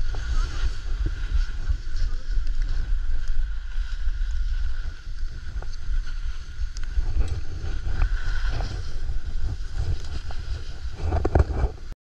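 Wind rumbling and buffeting on an action camera's microphone while skiing, with the hiss of skis running on snow. It gets louder in a rush near the end, then cuts off suddenly.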